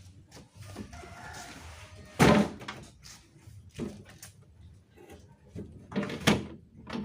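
Sheet-metal and plastic body of a scrapped single-door refrigerator being knocked and pulled apart: a few heavy bangs, the loudest about two seconds in and another pair near the end, with scraping between them.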